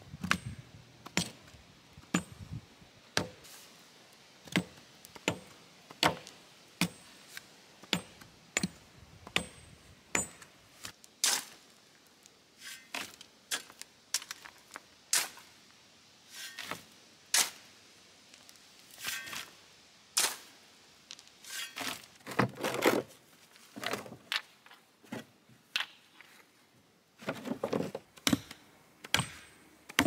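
Soil being tamped around a cedar fence-style post with a sledgehammer: a steady run of sharp thuds, roughly one or two strikes a second, as the dirt is packed into the post hole. In the second half a few longer, scraping sounds come in as dirt is shovelled into the hole.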